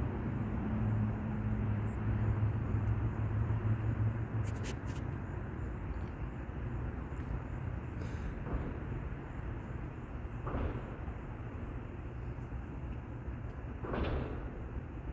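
Outdoor background with the low, steady hum of a vehicle engine, loudest in the first four seconds and then easing off, and a few brief swishes later on. No siren is sounding.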